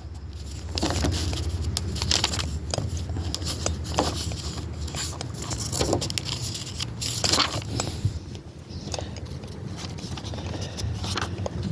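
Irregular rustling, clicks and scrapes of hands handling the compressor's paper instruction manual and packaging, over a steady low hum.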